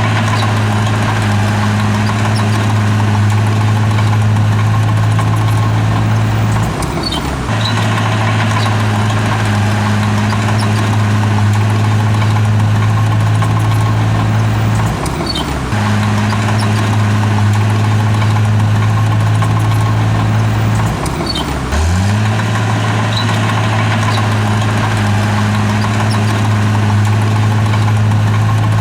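Heavy earthmoving machine's diesel engine running steadily. Its note dips briefly and comes back up three times.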